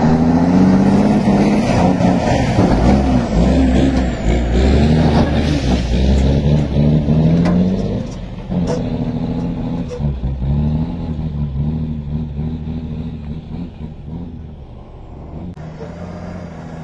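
Semi-truck's diesel engine labouring under heavy load as the loaded rig pulls through mud, its pitch rising and falling with the throttle. It is loud for the first half and fainter from about halfway on.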